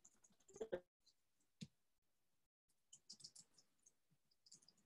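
Near silence: room tone with a few faint, short clicks and rustles, the clearest just under a second in.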